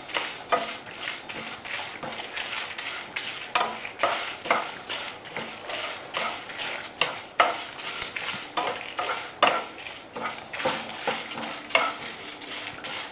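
Wooden spatula stirring whole spices being roasted on low heat in a non-stick frying pan: dried red chillies, cinnamon, cloves, peppercorns, cumin and coriander seeds shuffle and rattle against the pan in irregular scrapes and clicks.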